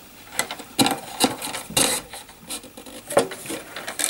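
Rattan cane stakes scraping, rubbing and clicking against each other as they are threaded behind and in front of neighbouring stakes to form a rolled border on a basket's wooden base. The strokes are irregular, with the loudest scrapes about two seconds and three seconds in.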